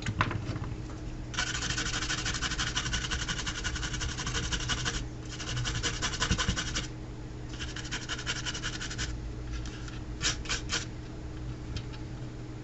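A brush scrubbing a circuit board to clean off the solder pads, in three spells of fast back-and-forth strokes, followed by a few short ticks near the end.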